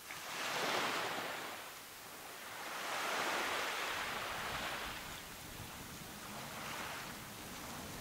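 Small waves washing up on a sandy beach, each rush swelling and fading: a strong one about a second in, a longer one from about three to five seconds, and a fainter one near the end.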